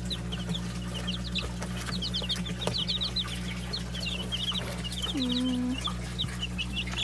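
A group of baby chicks peeping: many short, high chirps in quick succession, over a steady low hum.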